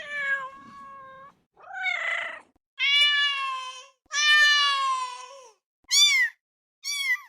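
A cat meowing repeatedly: four long, drawn-out meows, then two short, higher meows near the end.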